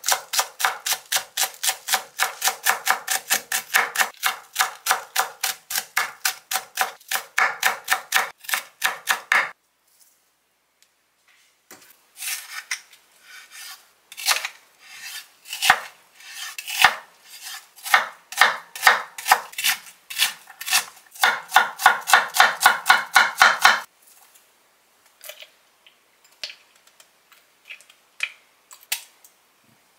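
Chef's knife chopping on a wooden cutting board. For the first nine seconds or so it goes through green onion in fast, even strokes, about four a second. After a short pause it chops an onion, unevenly at first and then fast again, stopping about 24 seconds in; a few light taps follow near the end.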